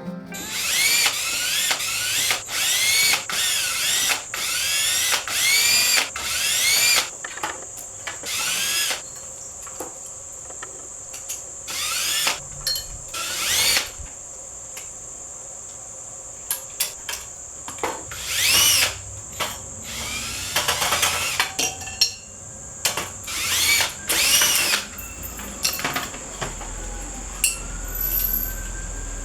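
Power drill running in short repeated bursts, each a quick whine sweeping in pitch, close together for the first seven seconds and then more spaced out.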